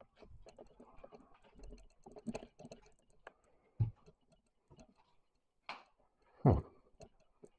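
Footsteps and small clicks and knocks on a hard floor as someone walks through an empty room, with a sharper knock about four seconds in and a louder thud a second before the end.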